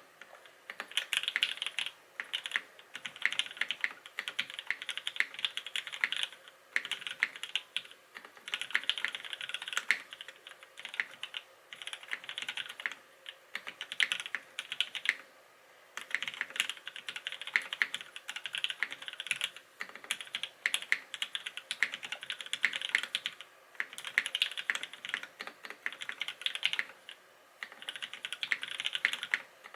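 Typing on a Smith + Rune Iron165 SE custom mechanical keyboard with lubed linear Gateron Black Ink switches on a carbon fibre plate and GMK keycaps: fast runs of keystrokes in bursts of a few seconds, with short pauses between them.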